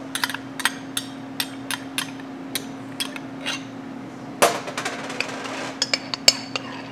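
A metal spoon scoops mayonnaise from a small cup into a glass mixing bowl, making a run of sharp clinks and taps, about two a second, against the cup and the bowl. There is a longer scrape about four and a half seconds in, and a steady low hum underneath.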